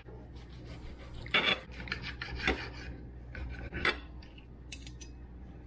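Steak knife sawing through a grilled tomahawk ribeye steak on a plate, in a few irregular rasping strokes with light scrapes of knife and fork against the plate; the strongest strokes come about a second and a half in and near four seconds in.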